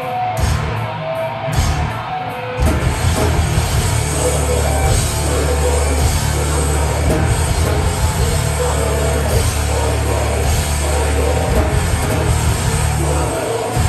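Metalcore band playing live through a club PA: distorted guitars, bass and drums. The first couple of seconds are choppy stop-start hits, then the band locks into a held, heavy low riff that changes near the end.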